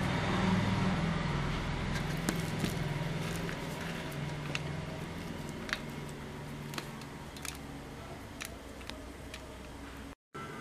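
A steady low hum that eases off over the first few seconds, with scattered light clicks and taps from handling on a steel plate.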